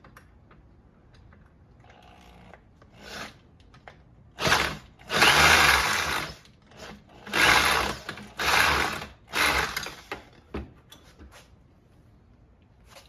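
Power driver spinning a deep socket on the rounded nut of a string trimmer's starter collar, in about five short bursts, the longest just over a second.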